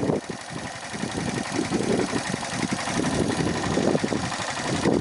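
Yamaha SR125's single-cylinder four-stroke engine idling.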